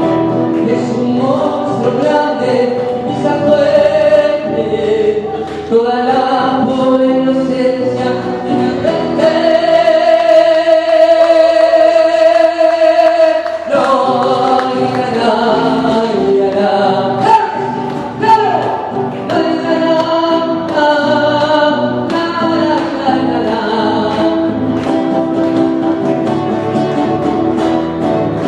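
Several voices singing together over instrumental accompaniment. In the middle one note is held for about three seconds while the low accompaniment drops out, and then the full band comes back in.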